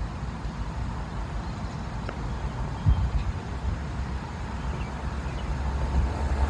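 Low rumble of road traffic that grows louder near the end, with a couple of faint ticks.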